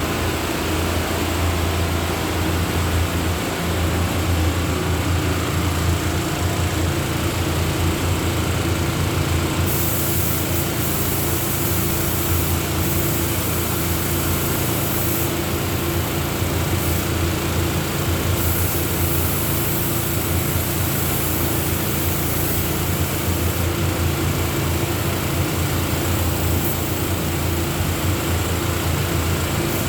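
Electric paint sprayer motor running with a steady hum. From about ten seconds in, a high hiss of spraying cuts in and out in stretches of one to several seconds as the trigger is pulled and released.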